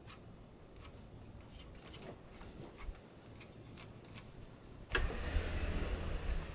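Faint scattered clicks and light scratching of hand marking-out work, a pencil and tool tapping on the wood. About five seconds in, a louder steady low hum with rustling sets in abruptly.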